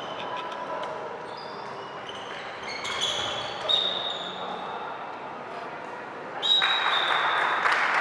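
Indoor tchoukball play in a sports hall: ball impacts, short high squeaks and spectators' voices, with the crowd breaking into cheers and applause about six and a half seconds in.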